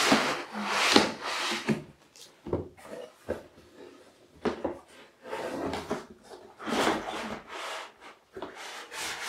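Cardboard packaging and foam inserts being handled during unboxing: cardboard sliding, scraping and rustling, with a few light knocks. The handling is busiest in the first two seconds, then comes in shorter scattered scrapes.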